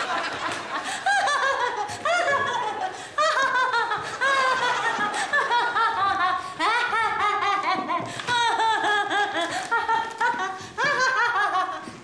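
A woman in a fit of laughter, laughing in long, high-pitched bouts broken by short pauses.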